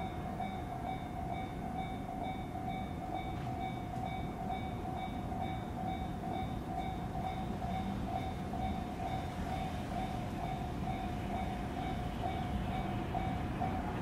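Japanese railroad crossing's electronic warning bell ringing with rapid, evenly repeated dings while the crossing signals flash. Underneath is a low rumble that grows a little louder near the end.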